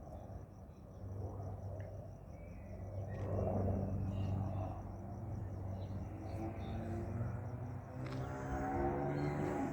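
Crickets chirping in a steady pulse over a low engine drone that swells and fades. Near the end a whine rises in pitch and grows louder.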